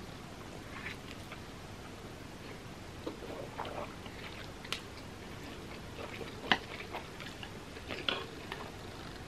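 A person eating instant ramen noodles: soft wet slurps and chewing, with scattered mouth clicks and smacks. The sharpest comes about six and a half seconds in.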